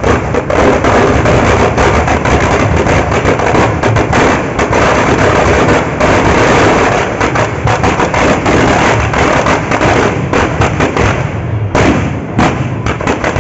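Firecrackers packed inside a burning Ravana effigy going off in a rapid, unbroken string of loud bangs and crackles.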